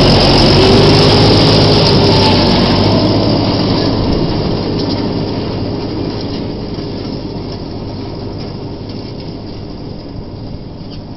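Pronar 5340 tractor running while towing a Samasz Z-410 rotary rake through hay, loud at first and fading steadily as it drives away.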